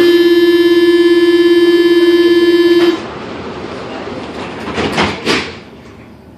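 Paris Metro Line 1 door-closing warning buzzer: a loud, steady single-pitched tone that sounds for about three seconds and cuts off sharply, signalling the doors are about to close before the train departs. About two seconds later come two short rushes of noise.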